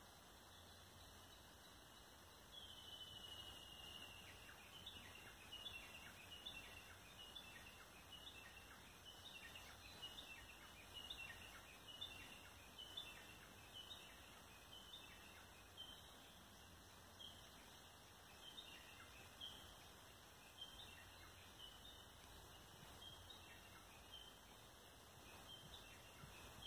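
Faint bird song: a drawn-out whistle that falls slightly in pitch, followed by a long run of short high chirps, a few a second, over a quiet steady background hiss.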